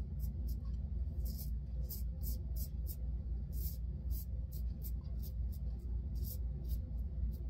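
Timeless 0.68 titanium safety razor scraping through lathered stubble on the upper lip and chin: a run of short rasping strokes, about three a second, over a low steady hum.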